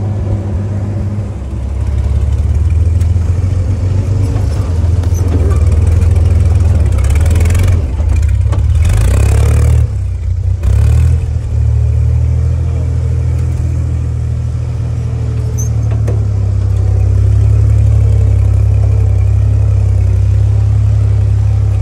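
1944 Willys Jeep's four-cylinder flathead engine running steadily as the Jeep drives along a dirt trail. A few seconds of louder rushing noise come about halfway through.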